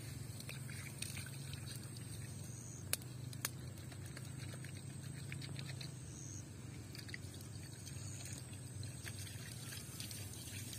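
Small stick campfire crackling, with scattered faint snaps and two sharper pops about three seconds in, over a steady low hum.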